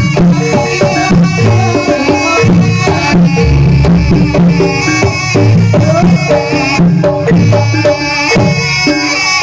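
Loud Javanese jaranan dance accompaniment: hand drums beating a steady rhythm under melodic instrument lines and a low bass.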